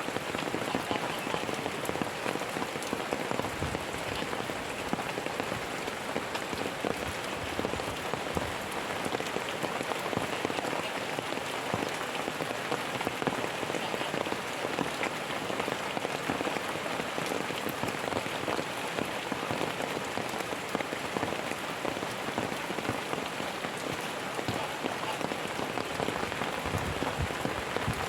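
Steady rain falling: a dense, even patter of drops that holds at the same level throughout.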